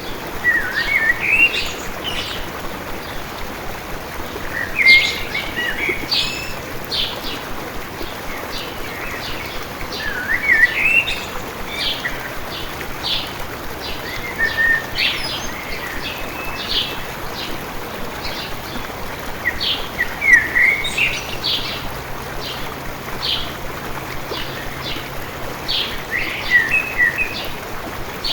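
Songbirds singing over a steady running-water stream: a short rising song phrase comes back about every five seconds, with many brief chirps between.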